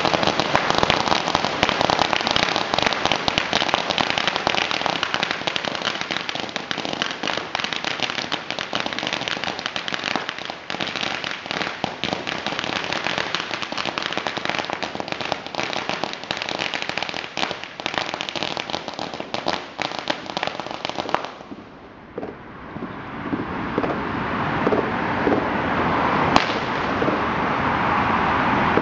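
A long string of firecrackers going off on the ground: a continuous rapid crackle of sharp bangs that stops suddenly about 21 seconds in. After it ends, the rushing noise of passing road traffic rises and grows louder.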